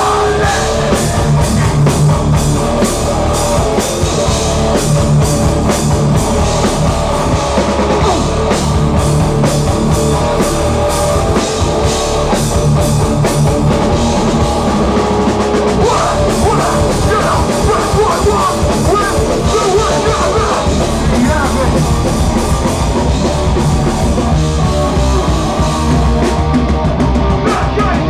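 Hardcore band playing live and loud: distorted guitars, bass and a fast-hit drum kit.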